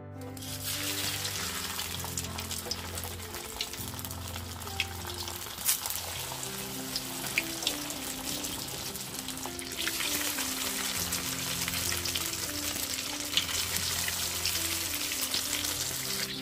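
Rice-paper spring rolls deep-frying in hot oil in a wok: a dense sizzle with scattered sharp pops and crackles, starting suddenly just after the start as the rolls go into the oil.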